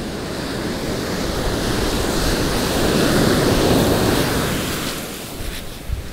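Heavy surf on a gravel beach: a large wave builds, breaks loudly around the middle and washes back down.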